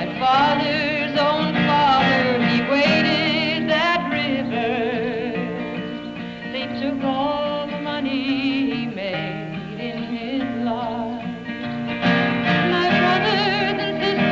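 A woman singing, her voice wavering with a strong vibrato, with guitar accompaniment.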